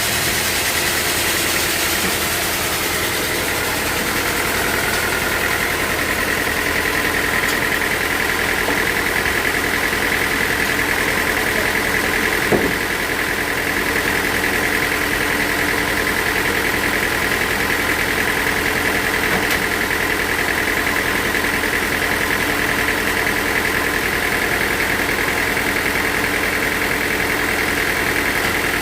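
Sawmill machinery running steadily, with a steady high whine that grows stronger about five seconds in and a single knock about twelve seconds in.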